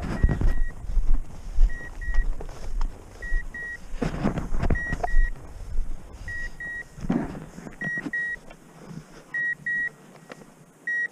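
Electronic beeper collar on a hunting dog giving a pair of short high beeps about every second and a half. Rustling of someone walking through dry grass comes and goes, loudest at the start, about four seconds in and about seven seconds in.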